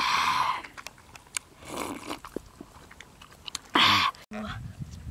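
A person eating cooked eel: chewing with many small wet mouth clicks and lip smacks, and three louder breathy bursts, one at the start, one about two seconds in and one near four seconds.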